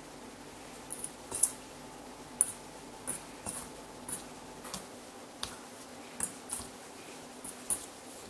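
Hands folding rice flour into grated yamaimo in a stainless steel mixing bowl: light, irregular ticks and scrapes of fingers against the bowl, about one or two a second.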